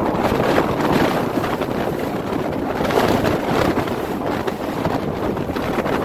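Strong wind buffeting the microphone, a loud rumbling noise that surges and dips in uneven gusts.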